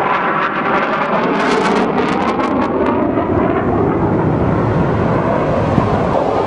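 Jet noise from a HAL Tejas fighter's single GE F404 turbofan as the aircraft flies overhead: a loud, steady rushing roar, with a patch of rapid crackling in the first few seconds.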